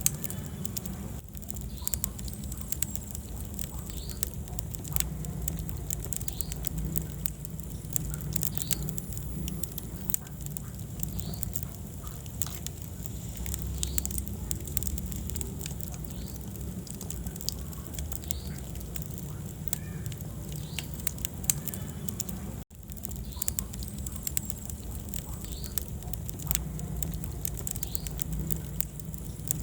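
Wood fire crackling in a fireplace: dense, irregular sharp pops and snaps over a low, steady rumble of the flames, with occasional faint short squeaks. The sound drops out for a moment about two-thirds of the way through.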